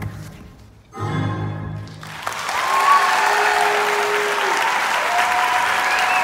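Recorded orchestral ballet music ends on two final chords. Audience applause breaks out about two seconds in and carries on loudly, with cheering voices calling out over it.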